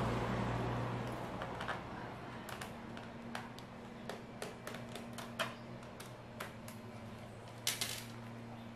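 Scattered small clicks and taps of a screwdriver working screws out of a Lenovo IdeaPad 3 laptop's plastic bottom cover, with a quick cluster of clicks near the end, over a faint steady low hum.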